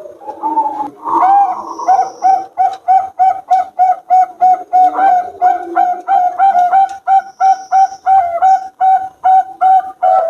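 Zebra dove (perkutut) cooing in a long, even run of short rounded notes, about three a second, with a fainter, lower cooing underneath from a second bird.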